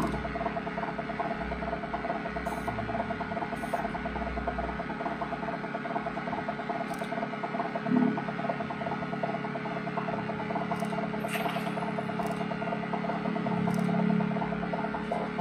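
Steady noisy drone with a constant electrical hum from an electric guitar and effects-pedal rig left sounding on the floor, with scattered faint clicks and a single low thump about eight seconds in.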